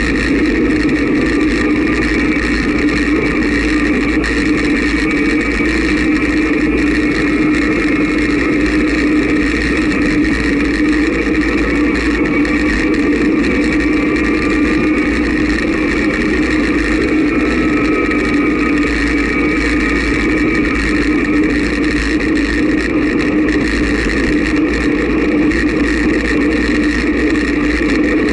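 Wind rushing over a bicycle-mounted camera on a fast road descent: a steady, loud rumble and hiss.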